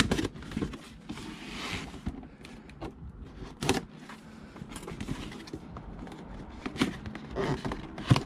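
Scattered clicks and knocks from objects being handled and set down on a workbench, with a short rustle about a second in.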